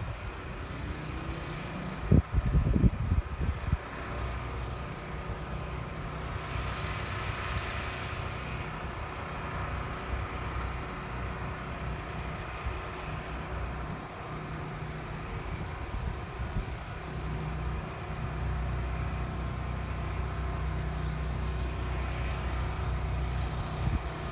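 Steady low motor-vehicle rumble, with wind gusting on the microphone a couple of seconds in.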